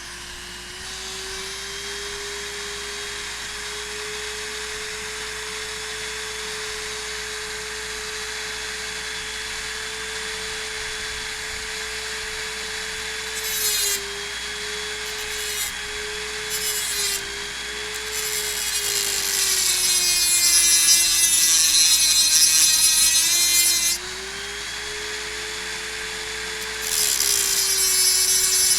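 Dremel rotary tool running with a steady high whine, its cutting wheel grinding into the heads of stripped TORX bolts to saw a screwdriver slot in them. The grinding comes in several stretches, loudest from about two-thirds of the way through and again near the end, the motor's pitch dipping under load.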